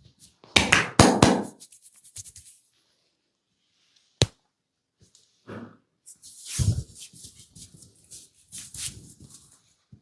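A masseur's hands working close to the microphone, making crackling, scratching and rubbing noises, with a single sharp click about four seconds in.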